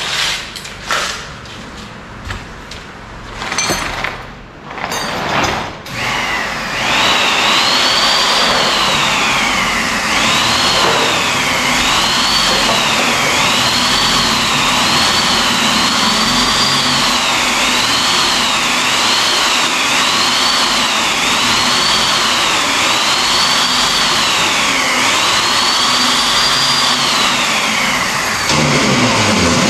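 A few knocks, then about six seconds in a corded electric drill starts and runs without stopping, its whine rising and falling over and over as it bores into the thin aluminium door jamb.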